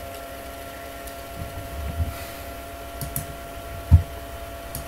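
Steady background hum with a few faint mouse clicks and soft low thumps, the loudest thump about four seconds in.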